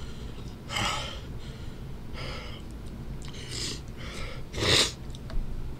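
A man's hard breaths through the mouth, four sharp hissing breaths, the loudest near the end, as he tries to cool a mouth burning from super-hot chili candy.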